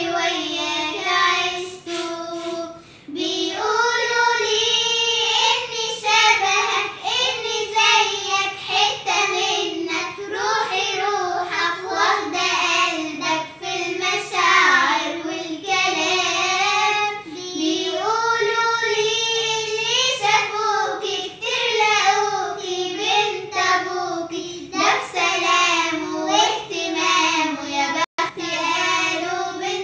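A child's voice singing a melody in continuous phrases, with a short break about three seconds in and a momentary dropout near the end.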